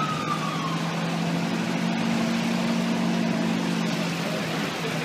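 An emergency vehicle siren falling in pitch and dying away about half a second in. It gives way to steady street traffic noise with a low, even engine hum.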